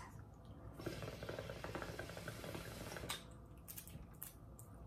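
A person drawing on a vape pen: a soft hiss with faint crackling for about two seconds, starting about a second in, then a quieter stretch as the vapour is breathed out.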